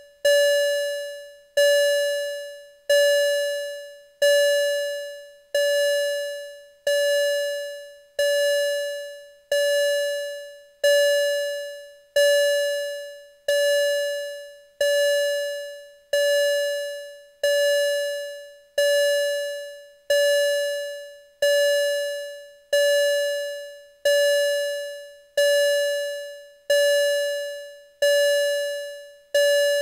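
Modular synth tone gated by a VCA that a sawtooth LFO modulates, through a DIY vactrol opto compressor: a single steady-pitched, bright note that starts suddenly and fades away, repeating about every 1.3 seconds.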